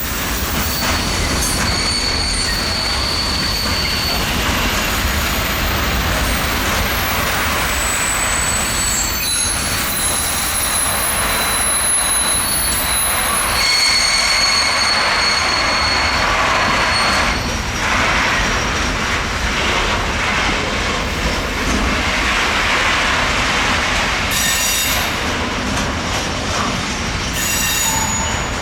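Combined-transport freight train pulling out, its wheels squealing against the rails: thin high-pitched shrieks come and go over a steady rolling rumble.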